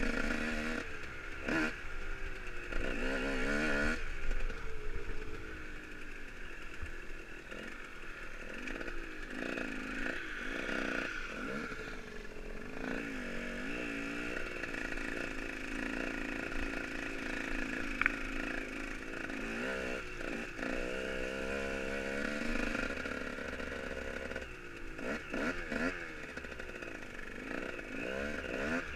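Dirt bike engine heard from on board while riding, its pitch rising and falling again and again with the throttle and gear changes. A single sharp click comes about two-thirds of the way through.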